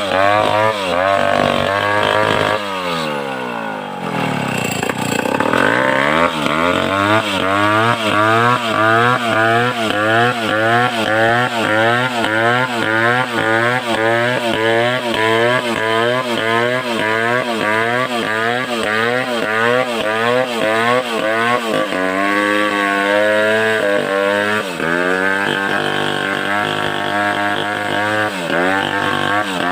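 Large homemade Stihl 070-type two-stroke chainsaw cutting through timber under load. Its engine pitch dips and rises in a steady rhythm about one and a half times a second, with one deeper drop and recovery a few seconds in.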